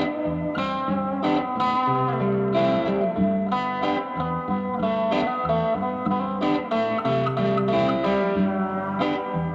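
Electric guitar played through a Vox AC10C1 10-watt valve combo amp: a steady run of picked single notes and chords, each left to ring, a new one struck about every half second.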